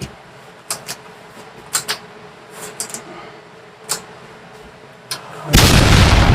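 A few light clicks and taps of handling, then about five and a half seconds in a handheld hair dryer switches on and runs loud with a rushing blast of air, blowing out the flour packed into it.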